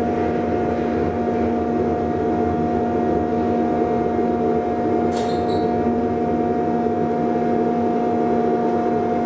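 1977 DEVE hydraulic elevator running, the car travelling in the shaft with a steady hum of its hydraulic drive, holding two fixed tones over a rushing noise. A brief pair of high chirps sounds about five seconds in.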